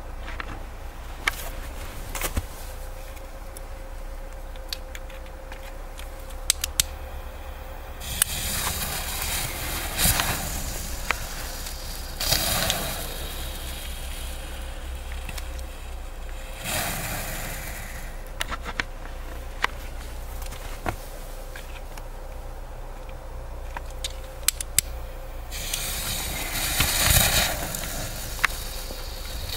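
Nico 'Silberregen Klein' silver-rain firework fountain burning: a spray of hissing that swells and fades in spurts, with sharp crackles and pops scattered through it.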